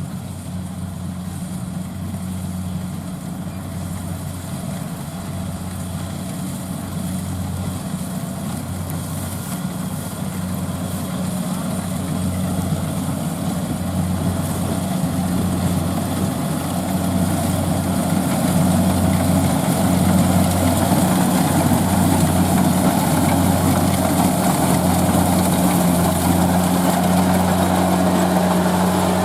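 Combine harvester engine running with a steady low hum, growing gradually louder.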